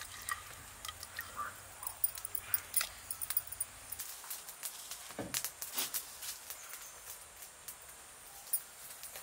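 Firewood crackling in a wood-fired clay-pot hearth, with scattered sharp pops and clicks. A short falling cry is heard about five seconds in.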